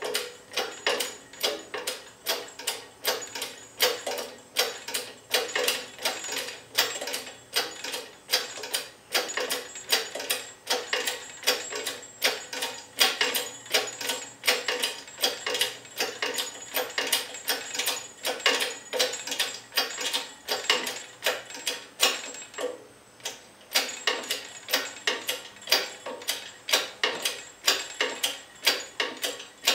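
Hydraulic pipe bender's hand pump being worked by its long lever: a steady run of clicks, about two to three a second, with a short pause about three quarters of the way through, as the ram bends half-inch black pipe around the die.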